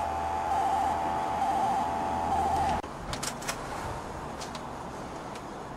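A steady electronic buzz for about three seconds that cuts off suddenly, followed by a few sharp clicks: an effect for getting a locked door open.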